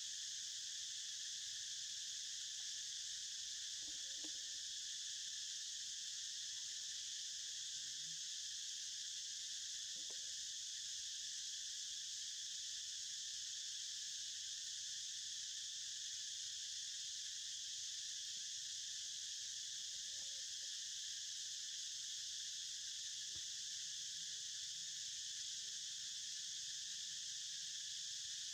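Steady, unbroken drone of an insect chorus, with several high-pitched layers.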